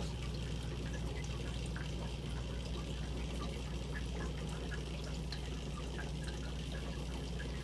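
Aquarium water bubbling steadily from a rising stream of air bubbles, with small scattered pops at the surface, over a constant low hum from the tank equipment.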